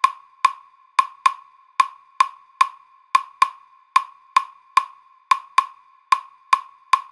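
Claves playing the salsa clave rhythm alone: dry, bright wooden clicks, five strokes repeating about every two seconds, each ringing briefly at one pitch.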